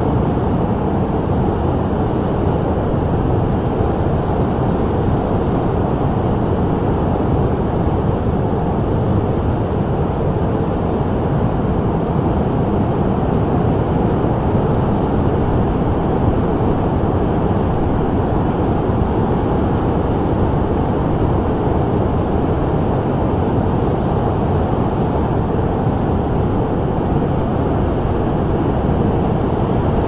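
Rough Lake Michigan surf breaking in rows onto the beach: a steady, dense rumble of waves with no lulls.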